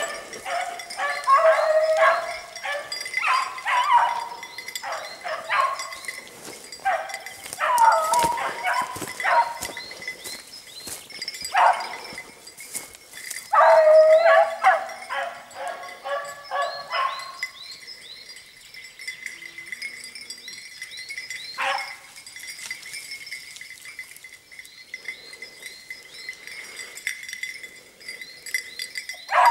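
A pack of beagles giving tongue, the repeated baying of hounds trailing a hare. The baying is dense and loud for the first half, then drops to a few scattered, fainter cries.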